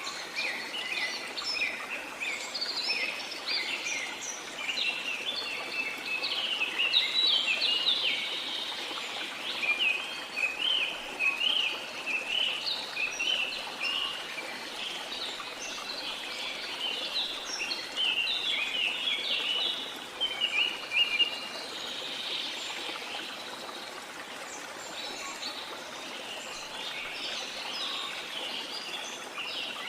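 Many birds chirping and singing in quick, overlapping calls over the steady rush of a waterfall.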